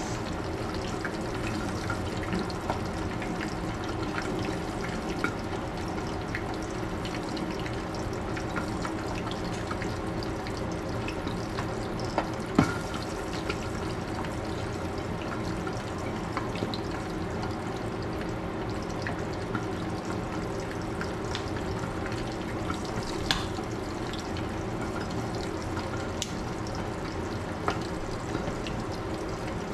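Milkfish frying in oil in a lidded pan: a steady sizzle with a few sharp pops of spattering oil, the loudest about halfway through.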